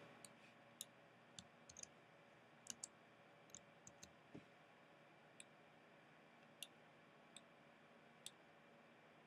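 Faint, irregular clicks of a computer mouse and keyboard, some in quick pairs, over near-silent room tone.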